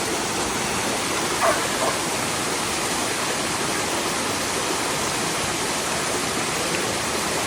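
Running water rushing steadily, with two short louder splashes about one and a half and two seconds in.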